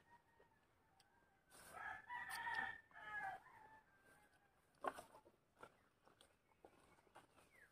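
A rooster crowing once, a long call of nearly two seconds starting about a second and a half in, followed by a few sharp knocks of a machete chopping firewood.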